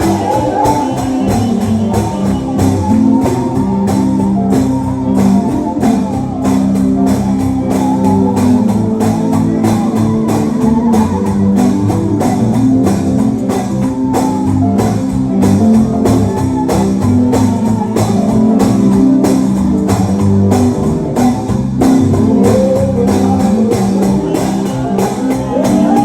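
Live church band playing an instrumental stretch of a gospel song with guitar out front over a steady beat.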